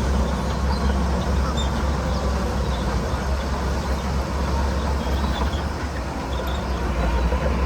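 Heavy diesel earthmoving machinery running with a steady low rumble.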